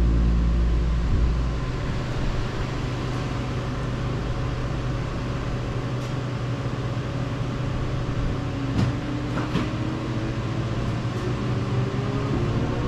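In-car sound of a car on a race track: the engine note drops away about a second in, leaving mostly steady wind and road noise with a couple of short knocks. Near the end the engine comes back in, its pitch rising as it accelerates.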